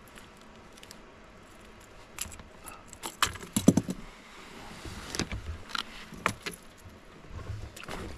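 Small metallic jingling and clicking of a crankbait's treble hooks and split rings as the lure is handled and worked free from a smallmouth bass. It starts about two seconds in and comes in irregular clusters, the loudest after about three seconds.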